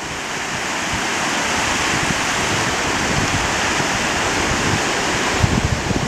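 Small sea waves breaking and washing up a sandy beach: a steady rush of surf that swells gradually, with some low wind buffeting on the microphone near the end.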